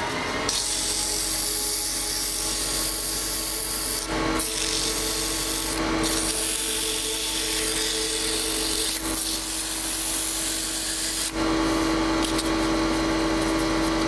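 Sandpaper rubbing on a small wooden turning spinning on a lathe: a steady hiss over the lathe's running hum. There is a short break about eleven seconds in before the sanding goes on with the hum a little stronger.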